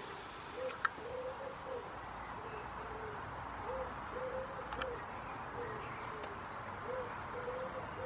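A bird cooing: short, soft, low notes repeated in phrases of three to five, with brief gaps between the phrases.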